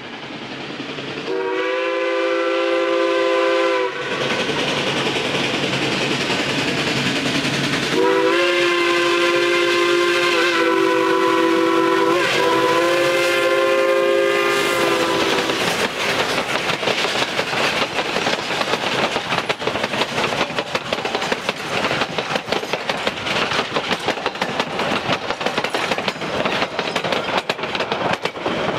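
Durango & Silverton narrow-gauge steam locomotive sounding its chime whistle in three long blasts, the last two nearly run together. The train then passes close by, its wheels clicking rapidly over the rail joints.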